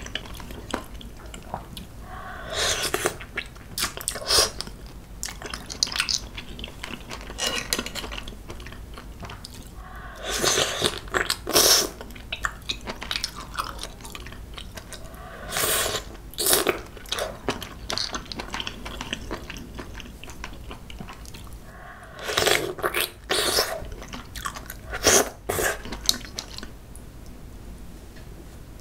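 Close-miked wet chewing of mouthfuls of Manila clams, in several bouts of a few seconds each with quieter pauses between.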